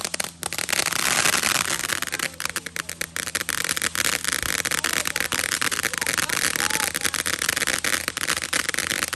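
Fireworks crackling: a dense, rapid, continuous string of small pops from glittering crackle effects.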